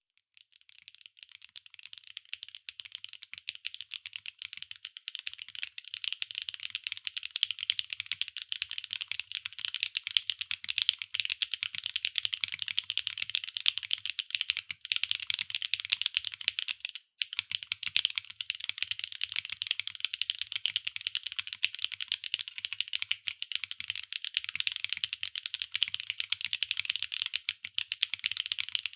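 Continuous fast typing on a SAAG65 mechanical keyboard with Keynetix x HMX Candy Red linear switches on an aluminium plate, O-ring mounted with no foam, under PBT/ABS double-shot keycaps: a dense stream of key clacks that builds up over the first few seconds, with a brief pause about seventeen seconds in.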